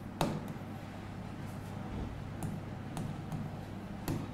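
Quiet room tone with a steady low hum, broken by a few sharp clicks of a stylus tapping on an interactive whiteboard as a word is written. One click comes just after the start and another near the end, with fainter ones between.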